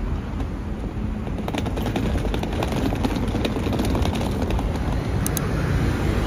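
Street traffic noise: cars and buses passing on a city road, a steady low rumble.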